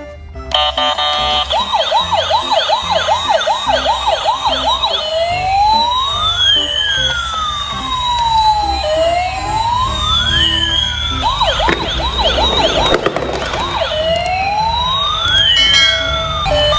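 Electronic emergency-vehicle siren. It switches between a fast yelp of about two sweeps a second and a slower wail that rises and falls over a few seconds, then back to the yelp and the wail again.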